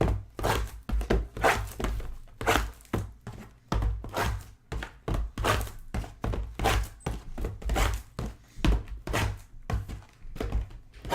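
Rapid, irregular knocks and taps, several a second, of trading-card boxes and packs being handled and set down on a table.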